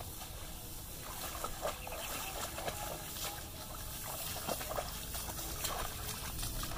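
Several people walking through tall wet grass in shallow water: an irregular run of soft steps, grass swishing and water splashing underfoot.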